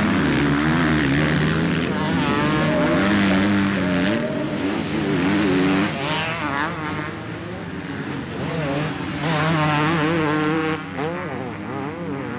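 Motocross dirt bike engines revving hard on a race track, their pitch rising and falling rapidly as the throttle is worked. The sound eases a little past the middle, then surges again.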